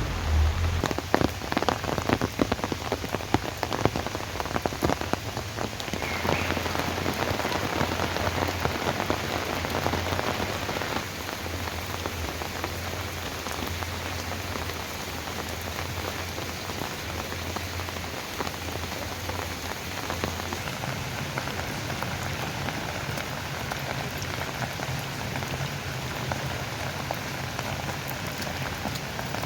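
Rain falling steadily, with close raindrops crackling sharply on a surface for the first several seconds and then settling into an even hiss. A low steady hum runs underneath.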